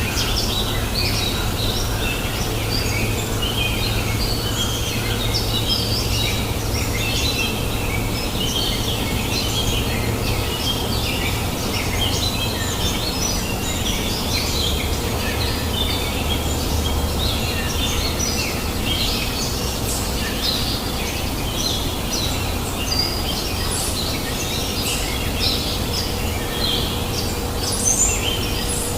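Many small birds chirping and singing at once in a dense, continuous chorus over the steady rush of a flowing river.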